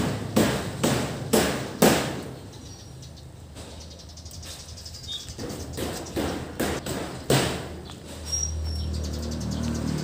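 Repeated sharp knocks, about two a second, like hammer blows: five loud ones in the first two seconds, then a pause, then a quicker, softer run ending in one loud knock past the middle. Near the end a steady low rumble sets in, with a few faint bird chirps.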